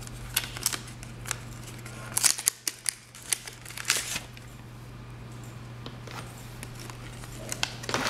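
A plastic fidget spinner handled against its white card retail box: a quick run of clicks, taps and crinkles over the first four seconds or so, then only a steady low hum, with a brief brushing noise near the end.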